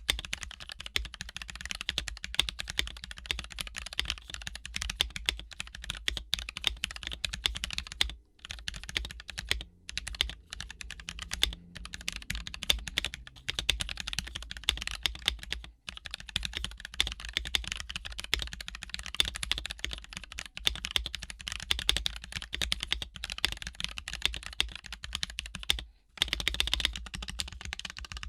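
Fast, continuous typing on a Tokyo60 mechanical keyboard with Gateron Yellow linear switches lubed with 205g0. The keystrokes come as a dense stream of clicks, with a few brief pauses.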